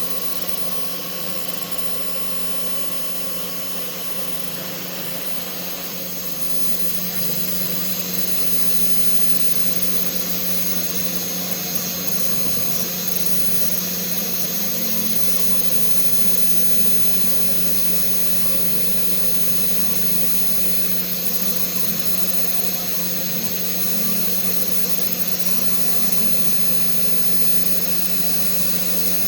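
CNC router spindle running steadily with a constant hum as the router bit carves, getting a little louder about six or seven seconds in.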